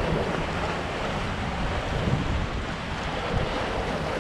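Sea surf washing over the rocks at the foot of a cliff, a steady rushing wash, with wind buffeting the microphone.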